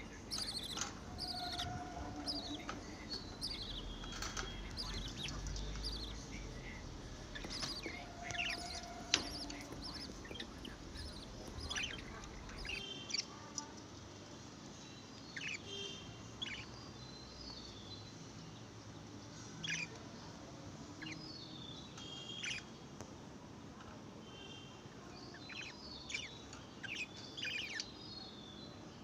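Baby budgerigars chirping: many short, high, quickly falling cheeps repeated irregularly, thick and busy in the first half and sparser later.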